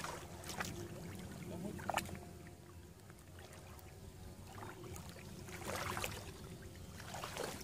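Shallow muddy water splashing and sloshing as hands grope through it and legs wade, with a few sharper splashes, the loudest about six seconds in.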